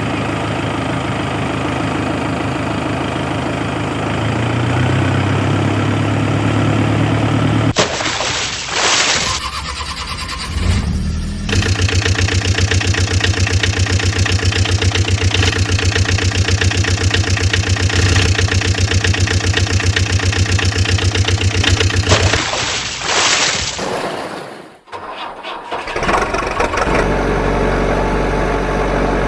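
Vehicle engines starting and running, in several back-to-back segments that switch abruptly, with a steady, evenly pulsing idle in the middle stretch.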